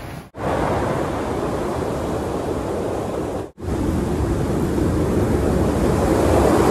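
Ocean surf washing up over a cobble beach and breaking waves, a steady rushing noise that grows a little stronger toward the end, with a low rumble of wind on the microphone. It drops out suddenly twice, briefly, about a third of a second in and about three and a half seconds in.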